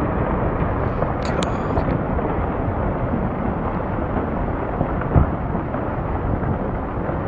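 Landslide in motion: earth and rock pouring down a slope in a continuous rumble. A brief high-pitched squeal comes about a second in, and a single thud comes about five seconds in.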